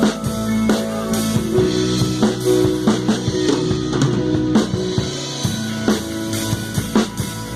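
Full band playing a worship song: drum kit with bass drum and snare hits over sustained bass, keyboard and electric guitar.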